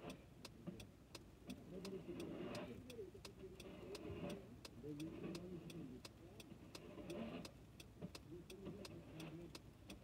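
Even ticking inside a car, about three ticks a second, with the steady rhythm of a car's indicator flasher, over faint muffled voices.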